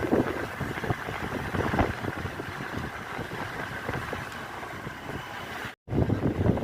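A vehicle on the move, with its rumbling ride noise and wind buffeting the microphone. The sound drops out for an instant near the end.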